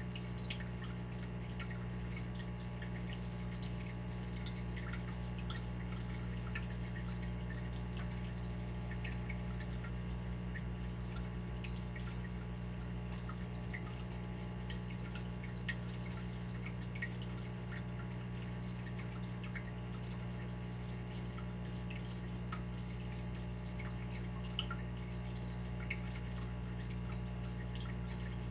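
Water dripping: many small, irregular drips, some louder than others, over a steady low hum.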